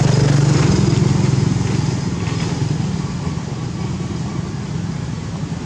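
A motor engine running steadily with a low hum, easing off in loudness after about two seconds.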